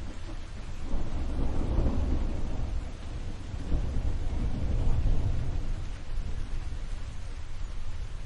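Rolling thunder that rumbles up about a second in, swells again a few seconds later and then eases off, over a steady hiss of rain.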